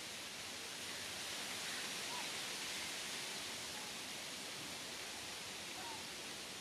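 Steady outdoor background hiss that swells slightly a couple of seconds in, with a few faint short chirps.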